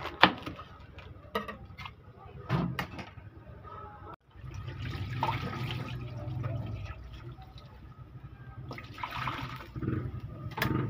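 A knife cutting through a head of cabbage onto a wooden board, with a few sharp knocks. About four seconds in, after a cut, tap water runs steadily into a stainless steel bowl as cabbage pieces are rinsed in it.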